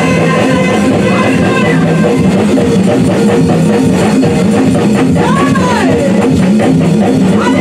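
Live gospel praise music: a church choir singing over a band with drum kit and electric guitar, played loud and steady.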